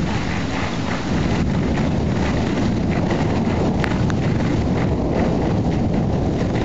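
Thunderstorm noise: a steady wash of rain and wind, with wind buffeting the microphone, slightly louder after about a second.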